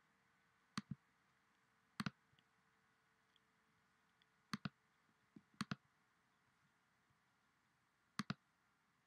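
Computer mouse button clicks: five separate clicks, each a quick press-and-release pair, spaced irregularly a second or more apart, over near silence.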